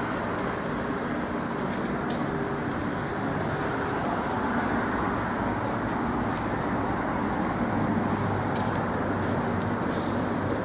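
Steady city traffic noise with a low hum, and a few faint clicks scattered through it.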